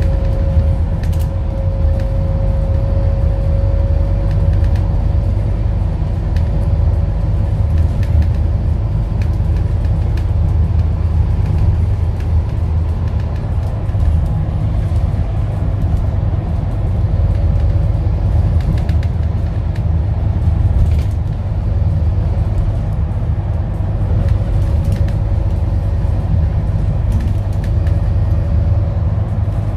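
Scania N230UD double-decker bus's diesel engine running steadily, a continuous low rumble with a faint whine over it. The whine drops slightly in pitch in the first few seconds and returns faintly later on; now and then there is a light click or rattle.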